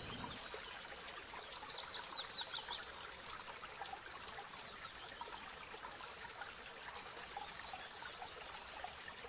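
Faint running-water ambience, a steady trickle, with scattered faint chirps. About a second in comes a quick run of about a dozen high chirps falling in pitch, lasting under two seconds.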